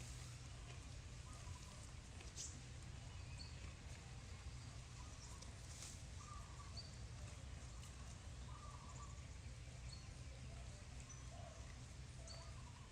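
Faint outdoor ambience: a steady low rumble with scattered short, high bird chirps every second or so and a few brief lower calls.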